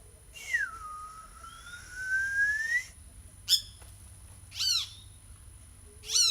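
A long whistled note that dips and then slowly rises, followed by three short, sharp calls about a second apart, the calls of a social flycatcher.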